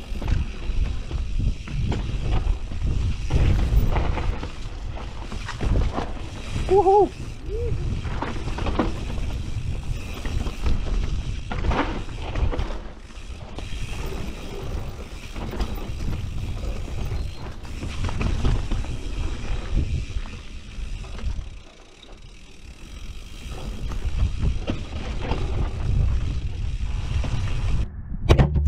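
Mountain bike riding fast down a dirt forest trail, heard from a camera on the bike or rider: a heavy rumble of wind on the microphone and tyres on dirt, with knocks and rattles from the bike. A brief squeal about seven seconds in, and a sharp knock near the end.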